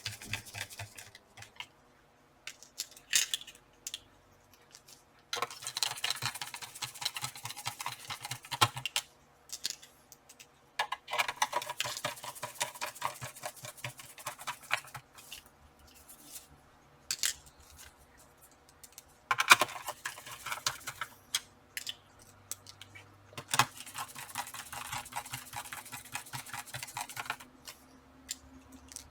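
Small screws being driven into a laptop's plastic bottom cover with a precision hand screwdriver: several stretches of fine scratchy clicking as the driver turns, separated by pauses and a few sharp single clicks.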